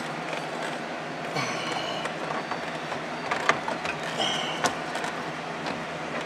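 Passenger airbag module being worked into the dashboard opening: short plastic-on-plastic squeaks about a second in and again near four seconds, with a couple of sharp knocks, over a steady hiss.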